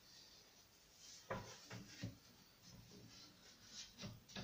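Faint, scattered knocks and taps of the glass pane and wooden glazing beads being handled and pressed into a door. The clearest knock comes about a second and a half in, with a few small taps near the end.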